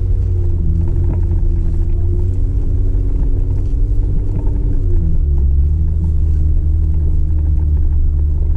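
Jeep driving on a snowy trail: a steady low engine and drivetrain rumble whose pitch drops twice, about two seconds in and again about five seconds in.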